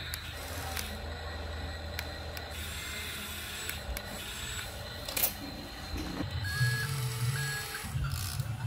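Small electric motors of a radio-controlled model excavator whirring as the cab swings and the arm moves, with a few sharp clicks. The whir grows louder and comes in short stop-start runs in the last few seconds.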